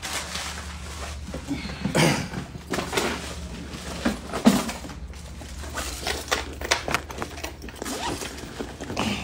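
Irregular knocks, taps and rustles of a phone being handled and moved about, over a steady low hum.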